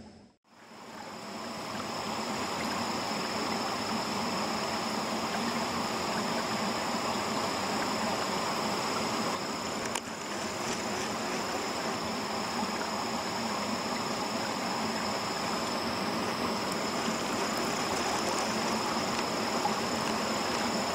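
Steady rush of running water, with a steady high-pitched insect drone above it.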